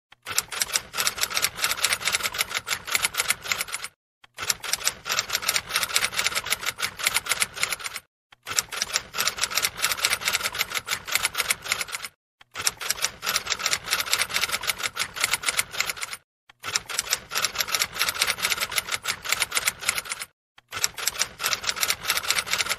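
Typing sound effect: rapid, continuous key clicks in stretches of about four seconds, each cut off by a brief silent gap before the next stretch begins.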